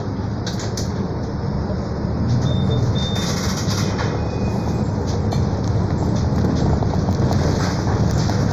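Mercedes-Benz O-500 U city bus under way, its engine and road noise heard from inside near the front, with scattered clicks and rattles. Two short high beeps sound a little over two seconds in.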